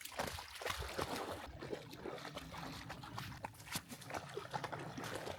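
A golden retriever making close, wet mouth and nose noises, with irregular clicks and snuffles.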